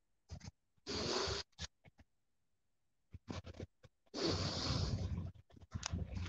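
Rough rustling and scraping noise on a handheld phone's microphone. It comes as two longer bursts, about a second in and again about four seconds in, with short scratches between them and a silent stretch near the middle. The sound cuts in and out abruptly.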